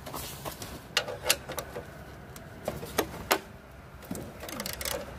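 Half-inch ratcheting wrench clicking as it backs a nut off a frame bolt on a snowblower: a few separate clicks, then a quicker run of clicks near the end.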